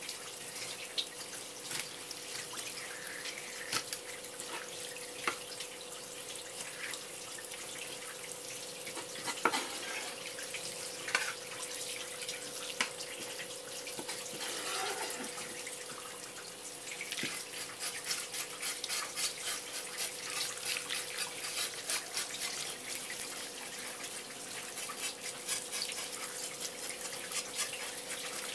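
Kitchen knife scraping scales off a wet horse mackerel on a wooden cutting board: scattered scrapes and taps at first, then, about two-thirds of the way in, a fast run of short strokes, several a second. A faint steady hum runs underneath.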